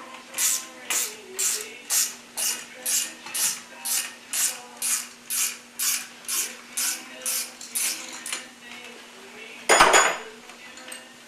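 Ratchet wrench clicking in even strokes, about two a second, as it backs off the clutch spring compressor on a TH350 transmission drum, releasing the piston spring pack. Near the end, one short loud metal clatter.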